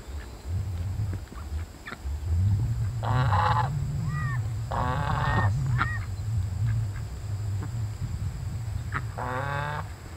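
Domestic goose honking three times, each call under a second long, with two short high chirps in between and a steady low rumble underneath.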